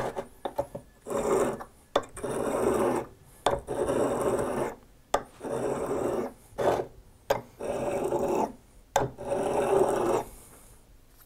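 Heat-treated O1 tool-steel boring bar tip being honed by hand on a sharpening stone: about seven rubbing strokes of a second or so each, with a sharp click at the start of several of them. The stone is taking down the high spots on the hand-ground tip.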